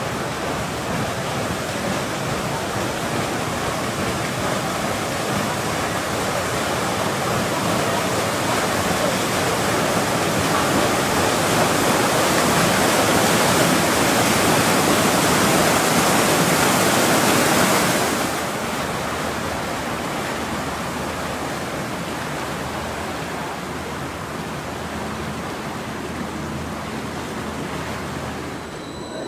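Steady rushing of water with no rhythm, growing louder toward the middle and dropping off suddenly about eighteen seconds in.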